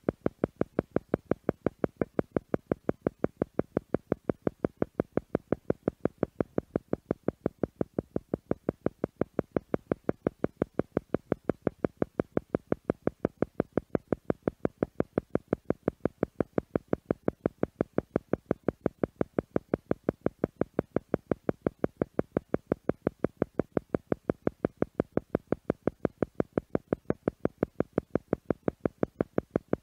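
Theta meditation tone: an isochronic-style pulsed tone beating in a rapid, perfectly even rhythm of several pulses a second, unchanging throughout.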